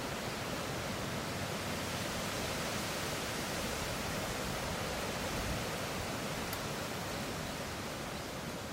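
Strong wind blowing steadily through trees in fresh foliage, leaves and branches rustling against each other in an even wash of noise.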